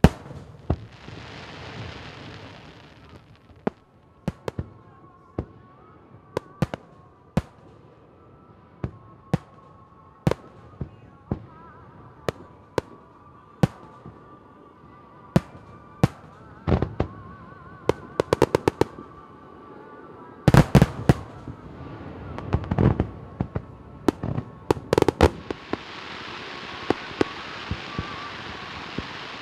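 Fireworks display: aerial shells bursting in many sharp bangs, some single and some in quick rapid-fire clusters, with a hissing crackle near the start and again over the last few seconds.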